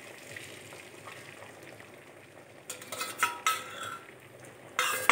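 Beaten eggs poured into hot oil in an aluminium kadhai, with a faint sizzle. Then a few ringing metal clinks and, near the end, a louder knock as a stainless steel bowl and spoon strike the pan.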